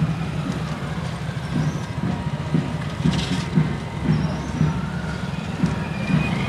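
Street noise around a marching procession: a low, continuous vehicle rumble with repeated low thumps about twice a second, and a short hiss about three seconds in.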